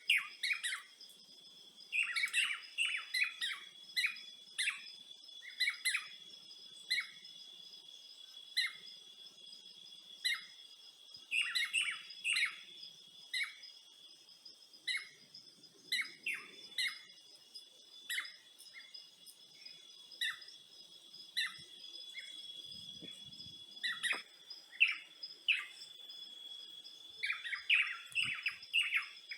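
Small birds chirping in short, repeated calls, sometimes in quick clusters, over a steady high-pitched background drone.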